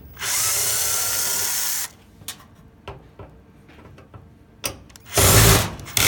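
Power drill/driver running in reverse to back out a screw, a steady whirr of about a second and a half with a faint motor whine. Light clicks follow, then a louder, shorter burst near the end.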